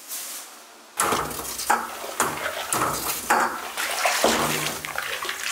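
Milky makgeolli (rice wine) mash splashing and sloshing in repeated strokes about twice a second, starting about a second in, over a low steady hum.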